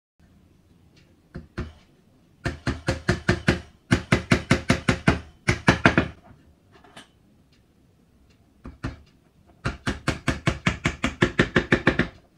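Small hammer tapping a steel chisel into split gombong bamboo: a few single taps, then long runs of quick, even taps at about eight a second, with pauses between the runs.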